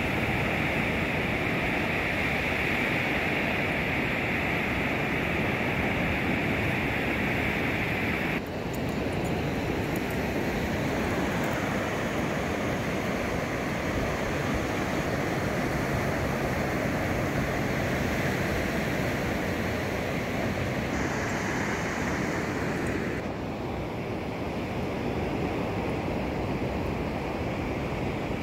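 Ocean surf breaking and washing up a sandy beach: a steady rushing noise whose tone changes abruptly about eight seconds in and again some fifteen seconds later.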